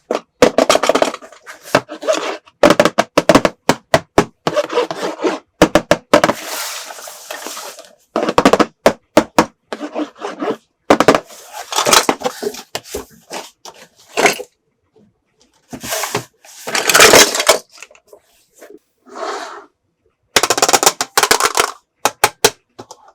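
Small plastic toy pieces being handled: bursts of quick clicks, knocks and clatter with some rustling in between.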